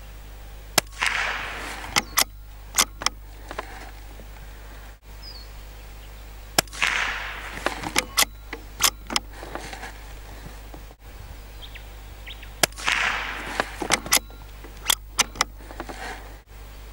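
Three .22 LR rifle shots from a Lithgow LA101 Crossover bolt-action rifle, about six seconds apart, each a sharp crack with a short fading echo, followed by several lighter clicks.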